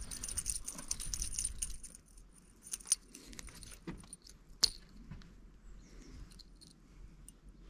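Shimano Catana spinning reel wound in quickly for about two seconds, a fine whirring tick-tick as a weed-fouled lure is brought in. After that come a few scattered sharp clicks and light metallic jingles.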